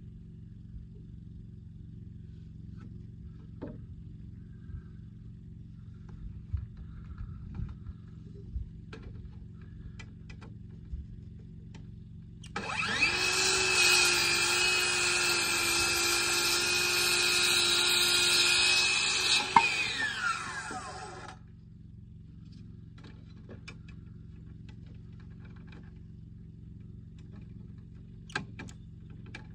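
Handheld circular saw spinning up and cutting through a wooden board for about eight seconds, then winding down. Before the cut there are only a few light knocks of the board being handled, and the saw starts up again right at the end.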